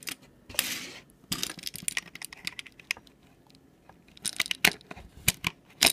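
Irregular small clicks and rattles of hands handling a USB hub: pressing its power switches and pushing USB plugs into the ports, with a short scrape about half a second in.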